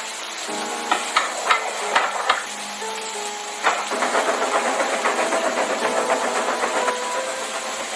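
Steady hiss of steam from a steam locomotive sound effect, with a few sharp clanks in the first four seconds, under soft music notes that change pitch every second or so.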